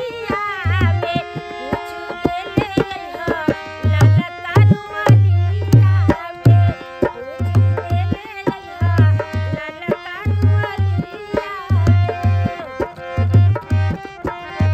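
Folk song accompaniment: a harmonium plays held, reedy notes over a dholak's rhythmic deep strokes. A sung phrase bends in and out at moments.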